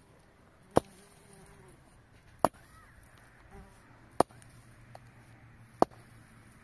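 Four sharp, hard strikes, evenly spaced about one every 1.7 seconds, in a steady working rhythm over a low background.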